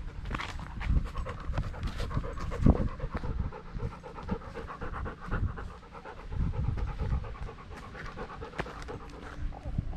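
A dog panting fast and close to a GoPro it is wearing, with low knocks and rubbing from the camera moving on the dog; the loudest knock comes nearly three seconds in.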